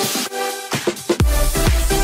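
Electronic dance music track; a heavy bass and a steady kick-drum beat come in just after halfway.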